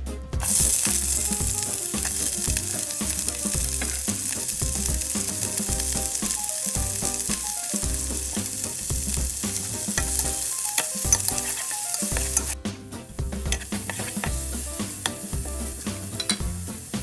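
Sliced onions frying in hot oil in a pot, a loud steady sizzle that cuts down suddenly about three-quarters of the way through. Lighter sizzling follows, with clicks and scrapes of a wooden spoon stirring the onions.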